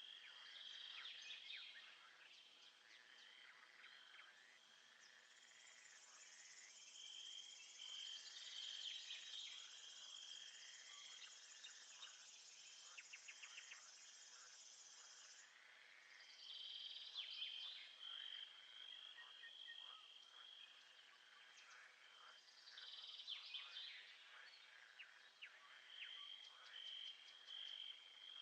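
Faint nature ambience of chirping insects: a steady pulsing, cricket-like trill, with scattered short chirps and calls. A higher, denser insect buzz joins about five seconds in and stops abruptly about ten seconds later.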